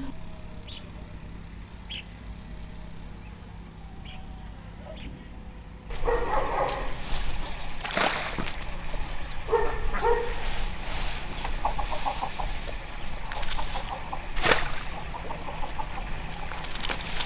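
Chickens clucking among knocks and clatter; the sound turns suddenly louder about six seconds in.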